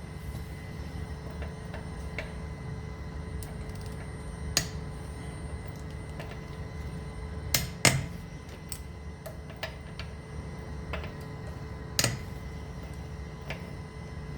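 Scattered sharp metallic clicks and knocks of a 17mm socket and breaker bar being worked on the front wheel bolts, over a steady low workshop hum.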